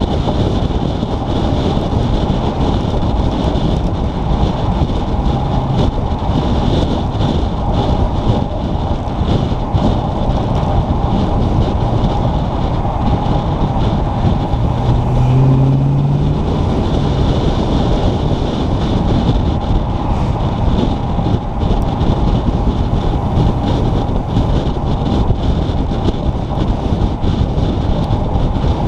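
Wind buffeting the microphone over steady road and running noise from a vehicle driving along a street. A short rising tone comes through about halfway.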